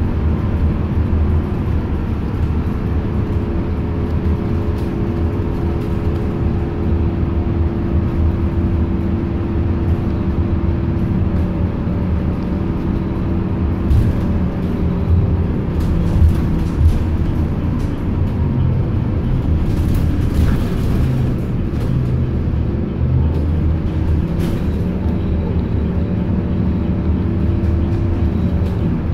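Ride noise inside a transit bus's cabin: a steady low engine and road rumble with humming drivetrain tones that shift in pitch about two-thirds of the way through as the bus changes speed, with a few brief rattles.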